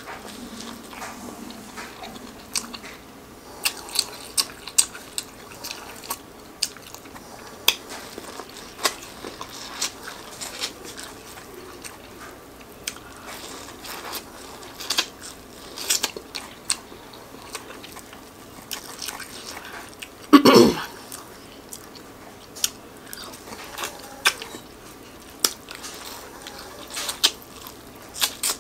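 Close-miked biting and chewing of sauce-coated corn kernels off the cob: scattered sharp snaps of kernels bursting between the teeth, with wet mouth sounds. One louder, longer mouth sound about twenty seconds in.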